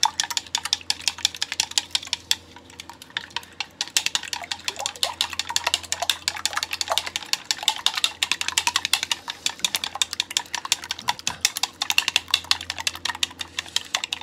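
Raw eggs being beaten in a bowl with long wooden cooking chopsticks: rapid, steady clicking of the chopsticks against the side of the bowl.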